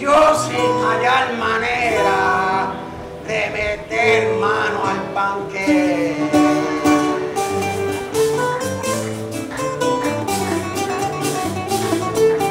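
Live punto cubano: a male singer singing a décima over a Puerto Rican cuatro and guitar, with a güiro scraping the beat.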